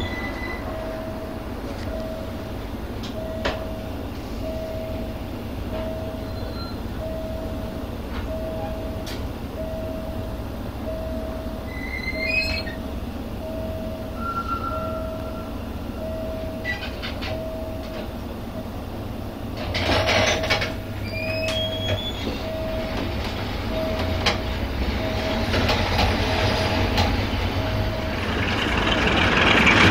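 Passenger train running behind a CFR 060-DA (LDE2100) diesel-electric locomotive with its Sulzer 12LDA28 engine, heard from the coupling end of the first coach: a steady low rumble of engine and wheels, with a short tone repeating about once a second and brief wheel squeals twice. The sound grows louder over the last few seconds as the train picks up speed.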